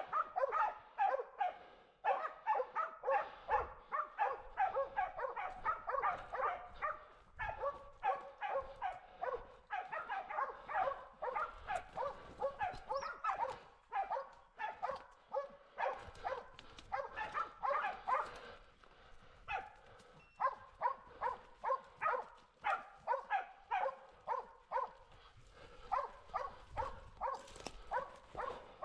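Hunting dogs baying on a wild boar's trail, giving rapid, continuous barking at about two to three barks a second, with a brief lull about twenty seconds in.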